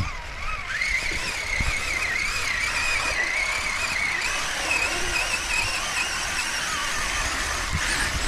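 High-pitched whine from a brushless Traxxas Summit RC truck's electric motor, its pitch wavering up and down as the throttle is worked.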